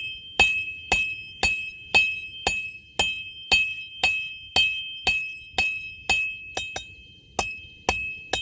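Blacksmith's hammer striking hot steel stock flat on the anvil face in full face blows, about two a second, each blow ringing with a clear high anvil tone. A few lighter taps fall between the blows about two-thirds of the way through.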